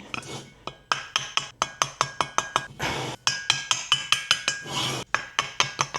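Stuck exhaust valve in a 1964 Norton Atlas cylinder head being worked back and forth in its rusty guide after a spray of WD-40: quick metallic clicks and clinks, about four a second, each with a short ring, and a brief scraping rasp around the middle. The valve is loosening but not yet free.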